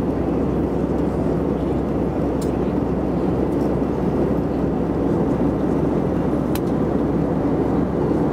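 Steady cabin noise inside an Airbus A320 in flight, heard from a seat over the wing: the engines and the air rushing past the fuselage make an even, unbroken low hum and rush. Two faint clicks sound, about two and a half and six and a half seconds in.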